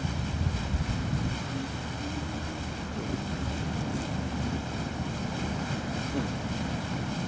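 Steady, low wind rumble on the microphone over the wash of the sea, on the open deck of a sailing ship under way.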